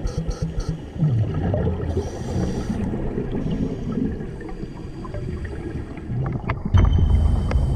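Scuba diving heard through an underwater camera: a muffled low rumble and gurgle of exhaled regulator bubbles and water moving around the housing, with short bursts of hiss about two seconds in, getting louder in the last second.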